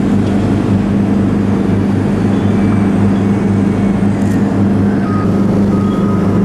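Heavy diesel engine of road-paving machinery running steadily: a loud, even, low drone that does not change.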